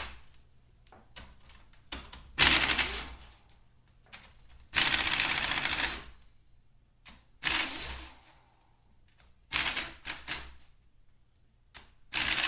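Pneumatic wrench run in five short rattling bursts, each under a second, backing out the 12 mm Loctited bolts from an AW55-51SN automatic transmission case.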